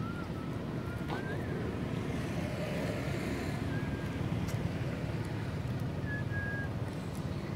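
Steady low outdoor rumble, like wind on the microphone or distant traffic, with a few faint short high whistles.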